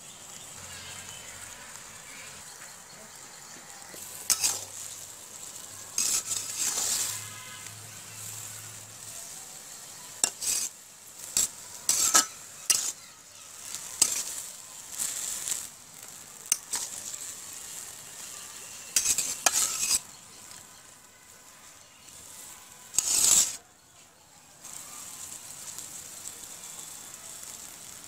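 Leafy greens sizzling in hot oil in a karahi, stirred and tossed with a flat metal spatula that scrapes against the pan in irregular strokes through the middle of the stretch, the loudest near the end.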